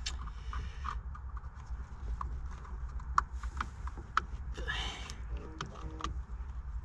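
Loose wires and plastic connectors being handled, giving irregular light clicks and a short rustle about five seconds in, over a steady low rumble.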